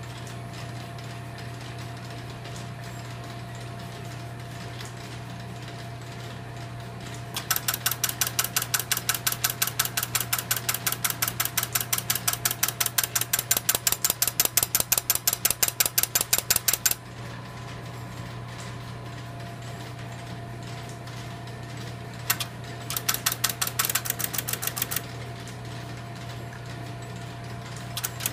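Electromechanical panel-type telephone switching equipment: a steady hum, then fast, even clicking at about six clicks a second for around ten seconds as its switches step, stopping abruptly. Later comes a single click, then a shorter run of clicking, and the clicking starts again near the end.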